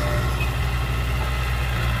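Small Komatsu D20P crawler bulldozer's diesel engine running steadily as the dozer works a pile of loose soil, a low, even drone.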